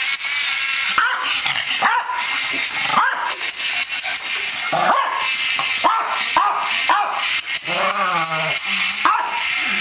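Pekingese barking repeatedly at a toy rat in short, sharp barks about once a second, with one longer wavering call about eight seconds in.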